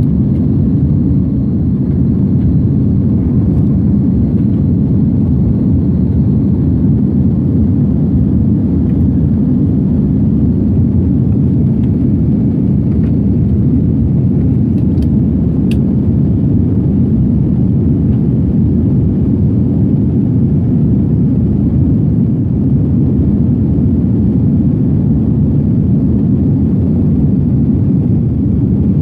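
Steady low roar inside an airliner's cabin during the climb after takeoff: jet engines and rushing air.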